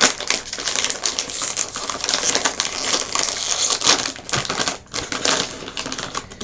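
Snack bag crinkling and rustling as it is handled, opened and reached into: a dense, crackly rustle that keeps going with only brief lulls.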